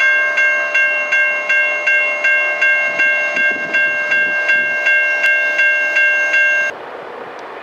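Railroad grade-crossing warning bell ringing in an even, rapid rhythm of about three strikes a second while the crossing is activated. It cuts off suddenly near the end, leaving a steady rushing noise.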